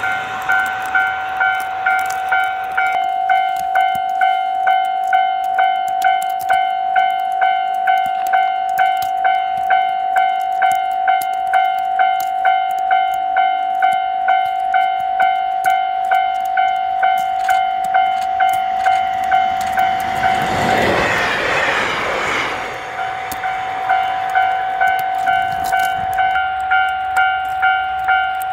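Japanese railway level-crossing alarm ringing steadily in an even tone, about two strokes a second. About 20 seconds in, it is covered for a couple of seconds by the rush of a train going by, then rings on.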